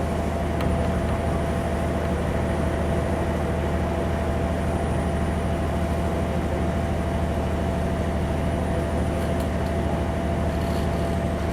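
Running sound inside a JR 205-0 series electric motor car with inner-fan traction motors, rolling at a steady speed. A constant low hum with a steady whine whose pitch does not change, and no clear rail-joint clicks.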